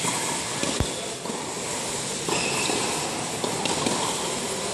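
Indoor tennis court sound: a steady hall noise, with one dull ball thump about a second in and a couple of faint, sharp tennis ball hits later on.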